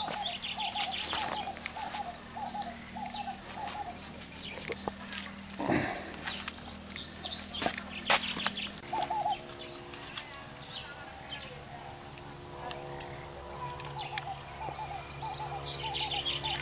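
Outdoor bird chorus: a short hooting note repeated about twice a second, mostly in the first few seconds, with higher chirps from other birds and a steady high insect buzz throughout.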